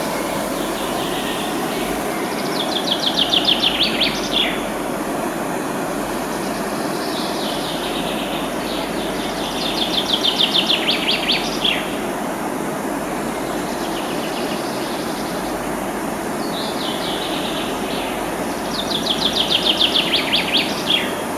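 Steady rush of a river flowing through a gorge, with a songbird singing three times: each song a quick run of high notes ending in a short downward slur, repeated about every eight seconds.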